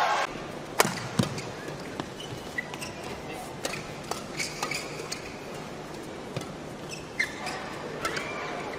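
Badminton rally: rackets strike the shuttlecock with sharp cracks about once a second, the loudest about a second in. Players' shoes squeak briefly on the court floor, over a low steady arena hum.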